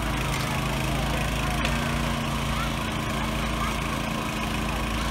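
Small engine of a hydraulic rescue-tool power unit running steadily while a hydraulic spreader forces a car door seam apart, with a couple of sharp cracks of the door giving way.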